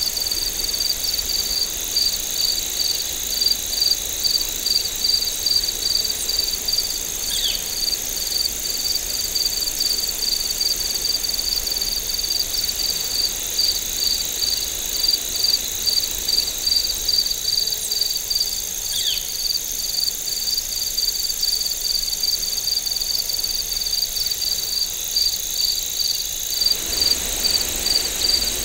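Crickets chirping in a steady, even rhythm, a few chirps a second, over a continuous high-pitched insect trill. Two brief falling calls cut through, about 7 and 19 seconds in.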